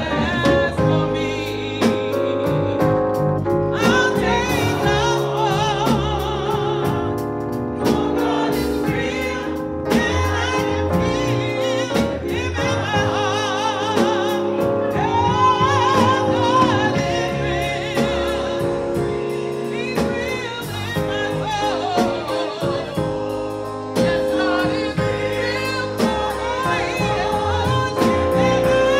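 Small group of women singing a gospel song together, voices with vibrato over steady held chords.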